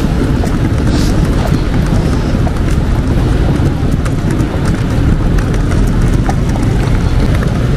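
Street ambience while walking beside a city road: a loud, steady low rumble of passing traffic and wind on the microphone, with footsteps on stone paving.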